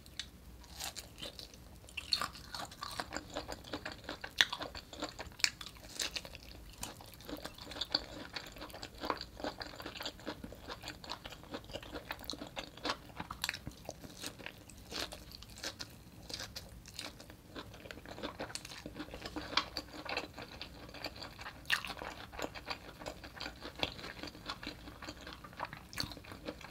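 Close-miked biting and chewing of cooked artichoke leaves: irregular crunches and sharp clicks of teeth on the leaves, coming several times a second.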